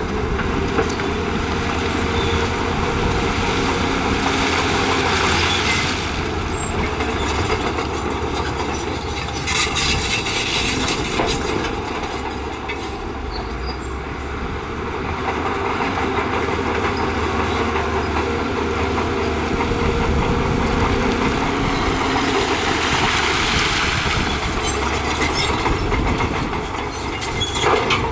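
Shantui crawler bulldozer at work: its diesel engine runs steadily under the clatter of its steel tracks, with a run of sharp clanks about ten seconds in.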